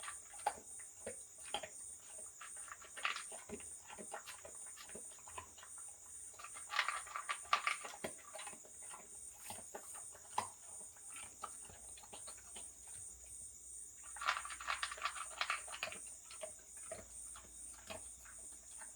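A dog crunching dry kibble, with clusters of quick crisp crunches about a third of the way in and again near the end. Crickets chirp steadily in a fast pulsing trill throughout.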